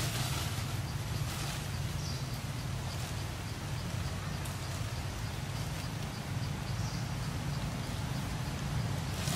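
Outdoor ambience: a steady low hum, with faint crinkly rustling of a plastic bag handled by a monkey. A faint high chirp repeats about twice a second through the middle.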